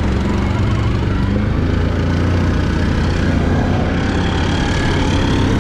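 Can-Am ATV engine running steadily while the quad rides along a dirt trail.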